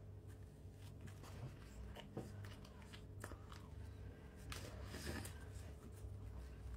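A person biting and chewing a footlong churro, with a few faint bites and mouth noises scattered through.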